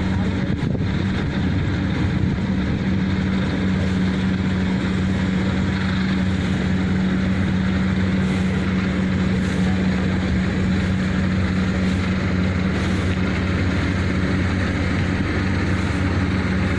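Engine of a Kubota rice-harvesting machine running steadily at constant speed, an even low hum.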